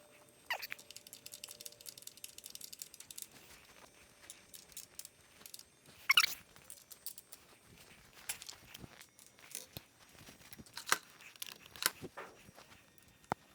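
Scattered handling noises: irregular clicks, knocks and scrapes, with a louder scraping rustle about six seconds in.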